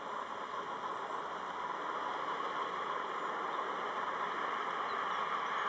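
Massey-Ferguson 4365 tractor engine running steadily while it pulls a slurry tanker across a field, heard at a distance as an even, noisy hum that grows slightly louder toward the end.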